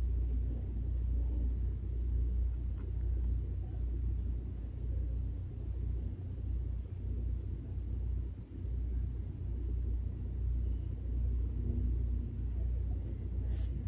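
A low, steady background rumble with nothing else distinct: room tone while no one speaks.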